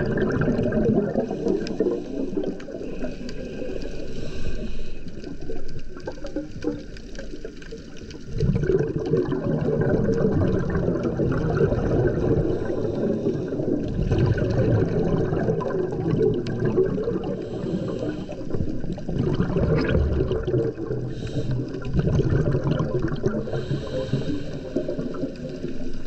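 Scuba regulator underwater: long rushing swells of exhaled bubbles every few seconds, with a quieter gap between breaths about six to eight seconds in.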